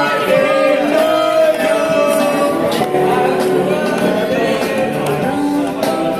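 Music with singing voices: several layered voices holding and bending notes over a light beat.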